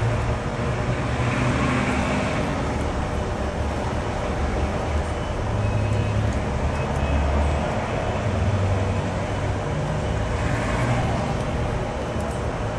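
Steady low rumble of passing road traffic, swelling and easing a few times.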